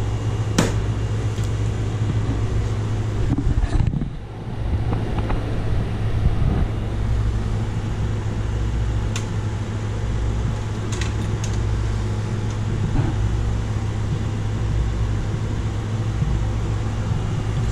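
Steady low hum of running computer fans, with a few sharp clicks from the server's front door and lock being handled.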